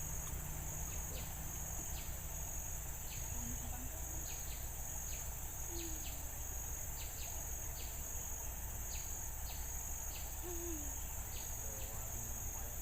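Riverside insects (crickets or cicadas) trilling in a steady, high-pitched, evenly pulsing chorus, with short sharp chirps repeating through it. A few brief low calls and a low steady rumble lie underneath.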